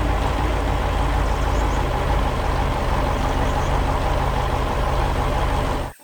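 Heavy truck diesel engine running steadily with a low rumble, cutting off abruptly near the end.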